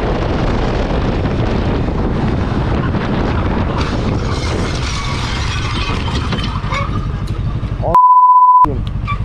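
Wind rushing over a helmet-mounted microphone, mixed with a motorcycle running on the road. About eight seconds in, a loud steady censor bleep, one tone, lasts under a second.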